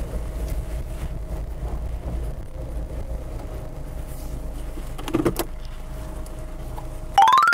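Steady low rumble of a kei camper van's engine and road noise heard from inside the cabin, with a single knock about five seconds in. Near the end a quick rising run of electronic tones sounds before everything cuts off.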